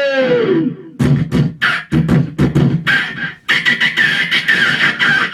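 Mouth-made sound effects (vocal mimicry, beatbox-style): a quick series of sharp clicks and pops from about a second in, then from about three and a half seconds a denser, steady rasping noise.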